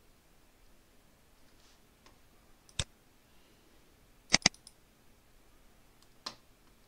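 Computer mouse clicks: a single click, then a quick double-click, then one more click near the end.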